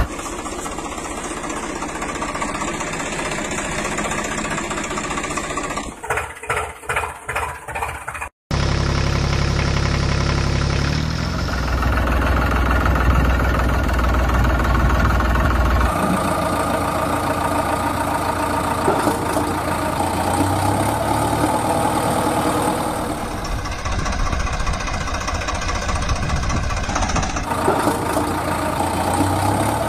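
Tractor engine idling and chugging, cut together from several takes with changes in tone. About six to eight seconds in it pulses in a run of quick surges and then drops out for an instant.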